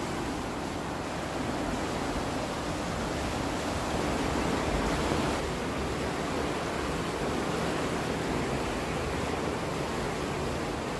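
Water surging and churning in a canal lock chamber as the sluices let water through to equalise the level: a steady, unbroken rushing noise.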